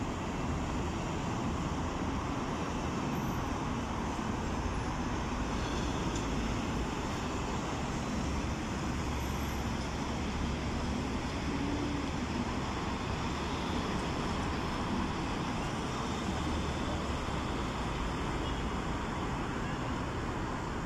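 Steady road traffic noise: an even rumble and hiss of passing vehicles, with no single event standing out.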